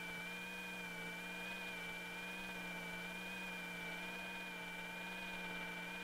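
Movie projector running: a steady whirring drone with a slight waver in pitch.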